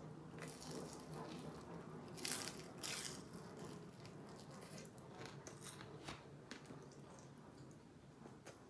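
Biting into and chewing crispy deep-fried whole chicken: two louder crunches about two and three seconds in, then quieter crackly chewing.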